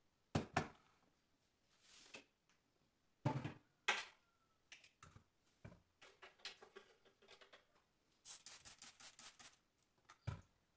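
Household objects handled on kitchen shelves: a few sharp knocks as things like a flower pot are lifted and set down, with stretches of rapid rustling and rubbing as a hand wipes along a shelf, and a double knock near the end.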